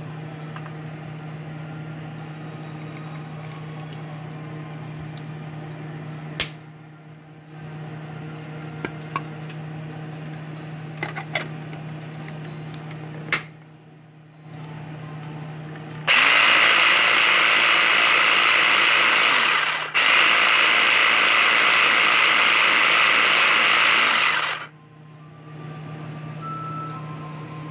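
Small electric food processor blending a thick sesame dressing: the motor runs loud and even in two bursts, about four and then five seconds, with a brief stop between. Earlier, a couple of sharp clicks.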